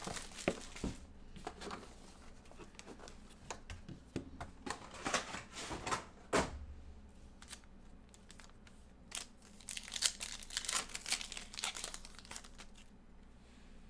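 Foil trading-card pack wrapper crinkling and tearing by hand as the pack is ripped open, in several short bursts of crackling with quieter pauses between.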